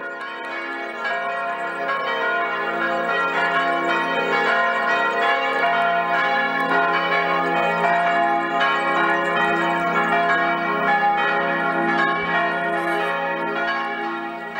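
Church bells ringing together in a full peal, with overlapping strikes and long ringing tones; the peal fades in at the start and fades out near the end.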